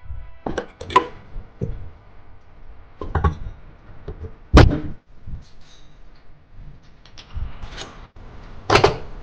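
Irregular knocks and clatter of tools and engine parts being handled on a workbench, with the sharpest knocks about halfway through and near the end.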